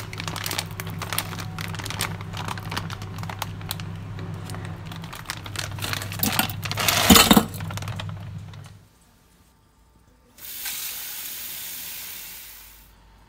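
A plastic bag of frozen shrimp crinkling as it is handled, and the frozen shrimp clattering out into a stainless steel saucepan, loudest about seven seconds in, over a steady low hum. After a short pause, a kitchen tap runs water onto the shrimp in the pan for about two and a half seconds, then stops.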